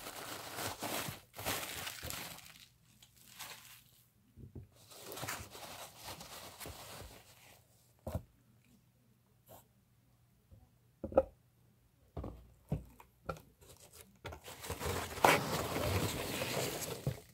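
Bubble wrap and foam packing peanuts rustling and crinkling as a package is handled and lifted out of a cardboard shipping box. It comes in three spells of a few seconds each, with a few sharp taps and knocks between them.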